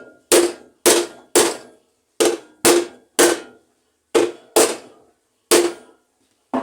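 Hammer blows, about nine in quick groups of two or three, each with a short ring. A part of a Cônsul washing machine's mechanism is being driven down until the slot for its key is clear.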